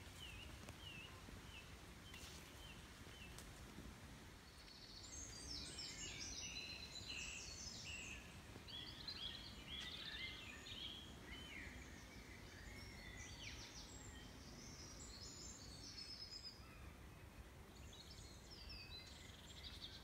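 Woodland birdsong: a run of short repeated chirps at first, then fuller, varied songbird phrases from about five seconds in, coming and going, over a faint low background rumble.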